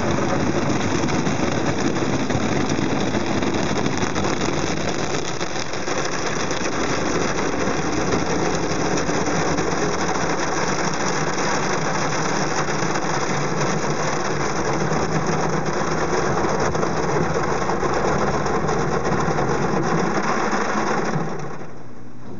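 Automatic car wash heard from inside the car: water spray and rotating brushes pounding on the body and windows in a dense, rapid, steady rush. It stops abruptly near the end, leaving a low steady hum.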